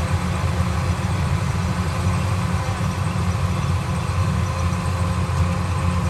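An engine running steadily at a constant speed, a low, even drone that does not change.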